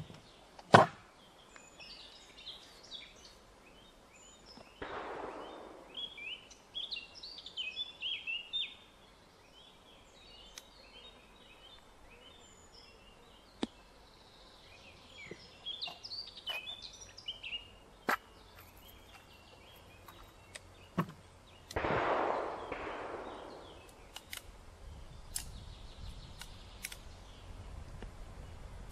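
A single shot from a .44 percussion revolver, the Remington New Model Army, about a second in, followed by birds chirping and scattered sharp clicks. Two longer rushes of noise come about five and twenty-two seconds in.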